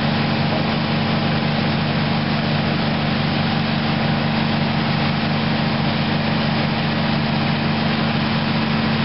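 Fire engine's engine running steadily, a constant low drone with an even hiss over it.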